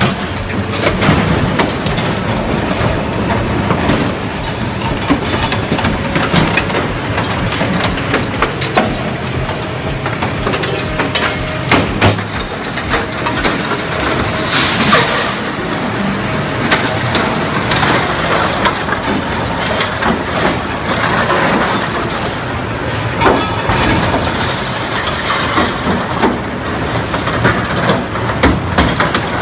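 Heavy machinery working, with engine noise under frequent sharp cracks and crunches.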